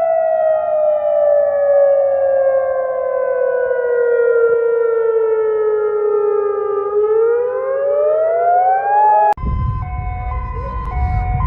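Electronic siren wailing: its pitch falls slowly for about seven seconds, then rises again. About nine seconds in it cuts off abruptly and a different siren takes over, switching between two tones over a low rumble.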